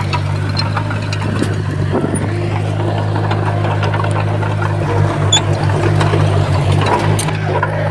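Heavy earthmoving machine's diesel engine running steadily, with scattered sharp clanks; the engine note pulses and swells for a couple of seconds about five seconds in.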